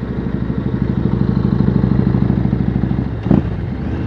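Yamaha Road Star's V-twin engine running under way, its firing pulses getting louder over the first few seconds, then easing off with a single sharp thump just after three seconds in.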